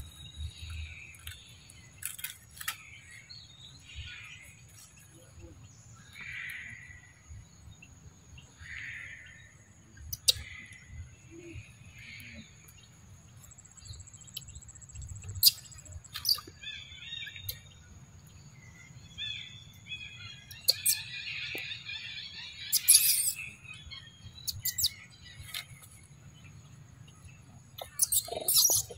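High-pitched chirping animal calls, short and repeated every second or two, then a busier run of chattering calls past the middle, with a few sharp clicks between them.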